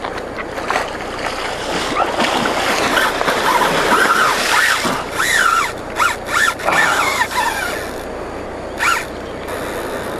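Water splashing and churning as a hooked fish thrashes at the surface of a pond, over steady wind noise on the microphone. From about two to eight seconds in it grows louder, with high wavering sounds that rise and fall over it.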